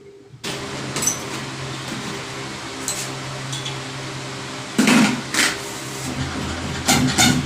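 A machine running with a steady hum, joined by a few sharp hissing bursts about five seconds in and quick regular pulses near the end.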